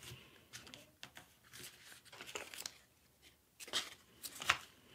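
A sheet of letter-size paper rustling and crinkling as it is folded and creased by hand, in short irregular bursts, with a couple of louder crackles near the end.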